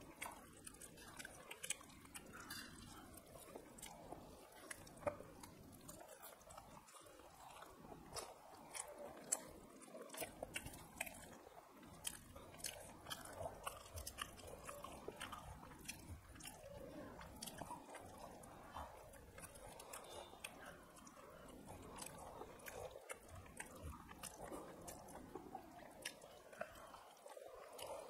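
Two people chewing and smacking their lips while eating rice and fish curry with their fingers, making many small, sharp, wet clicks throughout.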